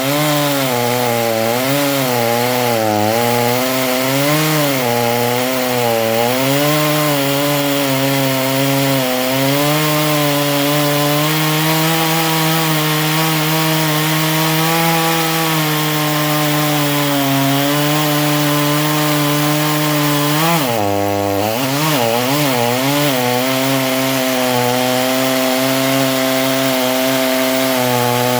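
Neo-tec NH841 two-stroke chainsaw cutting through a hardwood log, with the engine's pitch wavering as the chain loads up in the wood. The engine is still tight and not yet run in. About three quarters of the way through, the pitch drops sharply as the saw bogs down, then climbs straight back up.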